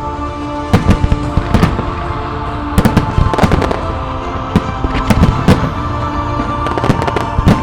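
Fireworks display: aerial shells bursting in a rapid, irregular series of sharp reports, heaviest about a second in, around three seconds in, at five to five and a half seconds and near the end. Music plays steadily underneath.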